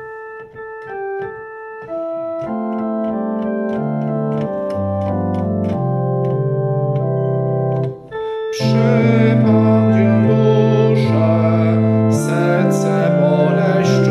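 Church organ playing a hymn. It starts with a thin single line of held notes, adds full chords over a low bass line about two and a half seconds in, and grows louder and brighter about eight and a half seconds in.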